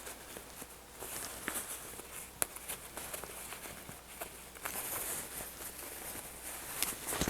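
Shirt fabric rustling and being handled as gathers are eased out along the gathering thread, with scattered faint ticks and taps. A short stretch of louder rustling comes about five seconds in.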